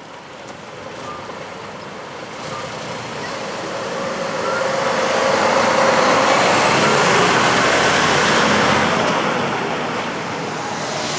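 A heavy decorated truck driving past: its engine and tyre noise builds up, is loudest around the middle, and fades away again.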